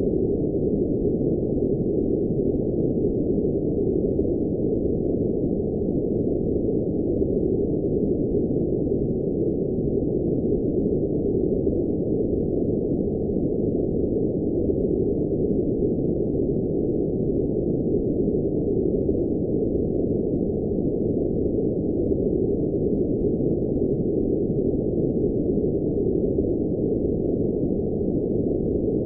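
Steady, electronically generated noise, an even muffled hiss with nothing above about 1 kHz, unchanging throughout.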